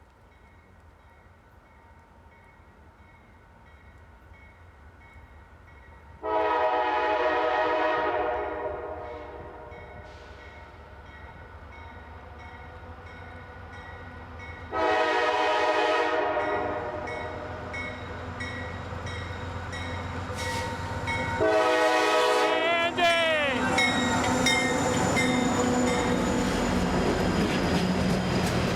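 CSX freight locomotive's air horn sounding three blasts as the train approaches, the first the longest. The last blast drops in pitch as the locomotive passes. Then comes the steady rumble and clatter of the freight train's wheels rolling by.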